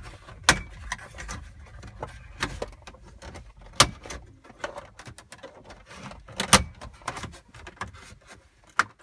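Plastic dash trim panel being pried with a plastic wedge tool: scattered sharp plastic clicks and knocks, four of them louder, as the trim resists coming out of its spring clips.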